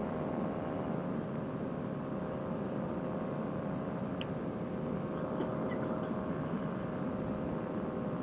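Fresh Breeze Monster paramotor engine and propeller running steadily in cruise flight, an even drone with a steady hum.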